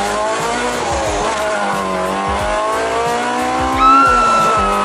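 Honda K20A (DC5 Integra Type R) four-cylinder engine pulling hard at full throttle on its VTEC high-lift cam, heard from inside the cabin. The engine note climbs steadily from about 6,000 rpm toward its 8,500 rpm limit. It is loudest near the top about four seconds in, then holds and sags a little.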